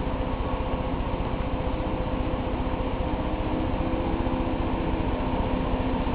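A steady mechanical hum at a constant pitch.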